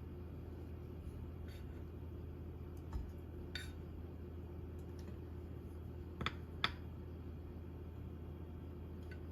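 A few light clinks of tableware: dishes and cutlery set down or touched, two of them with a short metallic ring, over a steady low hum.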